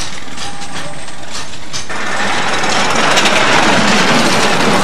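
Miniature steam locomotive passing: a few sharp clicks and knocks, then from about two seconds in a loud, steady hiss of escaping steam.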